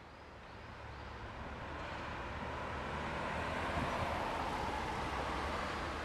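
Road traffic noise: a motor vehicle's engine hum and tyre noise growing louder over the first few seconds, then holding steady.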